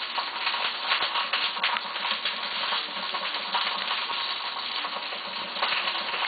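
Chunks of black bear meat searing in hot oil in a frying pan: steady sizzling, thick with small crackles and pops.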